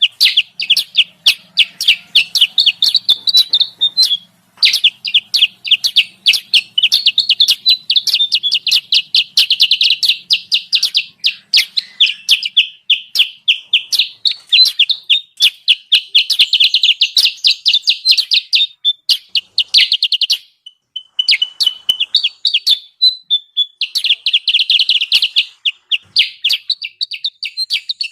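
Lure recording of kutilang sutra bulbul calls: fast, loud chattering chirps, many notes a second, in long runs broken by short pauses about 4 seconds in, near 21 seconds and again near 26 seconds.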